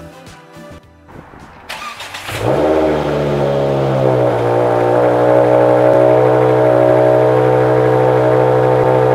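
Music at first, then about two seconds in the Ford Focus RS Mk2's turbocharged 2.5-litre five-cylinder engine starts, its pitch rising briefly as it catches, and settles into a steady idle.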